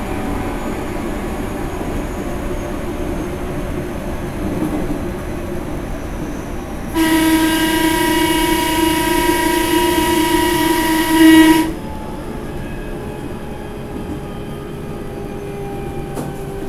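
Running noise of a JR 373-series electric train heard from its vestibule at a reduced 50 km/h. From about seven seconds in, the train's horn sounds one steady blast of about four and a half seconds, swelling just before it cuts off, a warning to workers inspecting the track.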